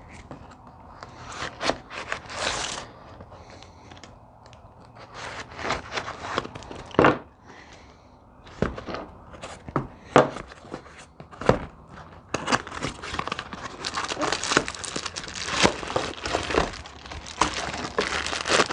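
Packaging being handled and unwrapped: scattered knocks and rustles, then continuous crinkling and tearing from about two-thirds of the way in.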